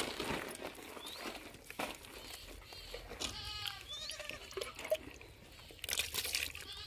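Goats bleating a few times, one call clearest about three seconds in, over the rustle and scrape of a hand mixing dry chaff feed in a plastic tub.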